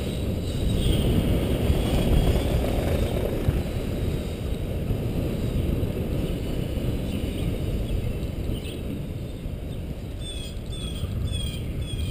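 Wind rushing over a camera microphone on a moving bicycle, a steady low rumble. Near the end a series of short high chirps comes two or three times a second.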